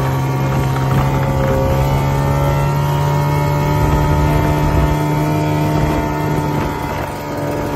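Ski-Doo snowmobile engine running steadily while riding along a snowy trail, its note easing off a little near the end.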